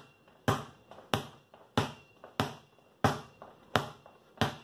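Basketball dribbled hard on a concrete floor: seven sharp, evenly spaced bounces, about three every two seconds, with faint taps between them.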